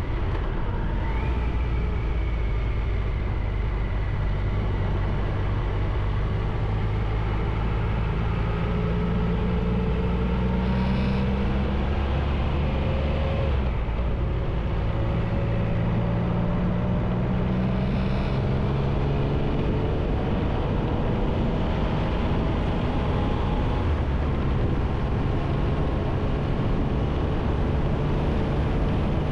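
Triumph Tiger 1200's three-cylinder engine accelerating steadily with wind noise rushing past, its pitch climbing slowly, dropping at a gear change about halfway through, then climbing again and levelling off at cruising speed.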